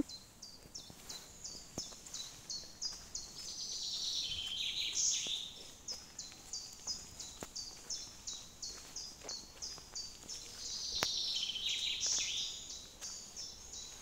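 Woodland songbirds singing: one bird repeats a short high note about three times a second throughout, while a fuller, more rapid song rises over it twice, about four and about eleven seconds in.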